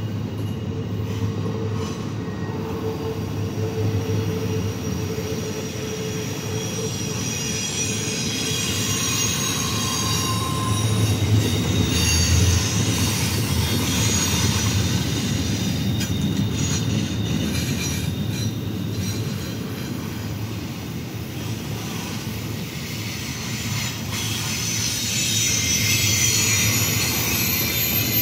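Double-stack intermodal well cars rolling past: a steady rumble of steel wheels on the rails, with high-pitched squealing from the wheels that comes and goes and grows louder near the end.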